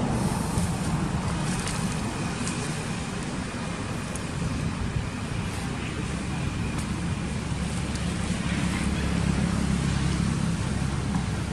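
Steady low rumble of outdoor background noise, like distant road traffic, with a few faint clicks; it grows a little louder in the last few seconds.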